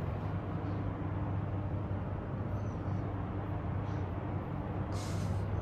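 Steady low hum and faint hiss of a quiet room, with a short rustle near the end.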